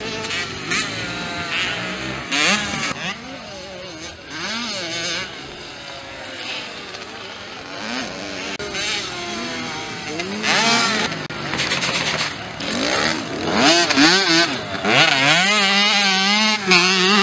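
Small two-stroke motocross bikes of the 65cc class racing, their engines revving up and down again and again as the riders work the throttle through jumps and corners, several bikes at once and louder over the second half.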